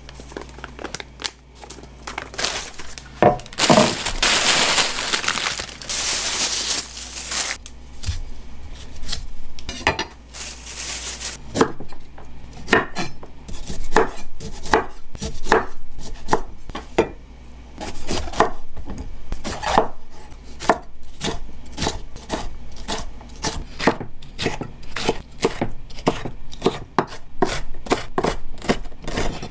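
Chef's knife chopping broccoli and bell pepper on a wooden cutting board, each cut ending in a knock of the blade on the wood; the strikes come singly at first and quicken into rapid chopping near the end. The first several seconds hold a rustling noise before the chopping starts.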